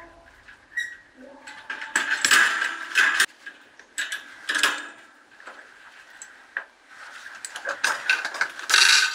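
Steel rebar mesh being handled: irregular bursts of metal wire rattling and scraping against rebar and crushed stone, loudest about two seconds in and again near the end.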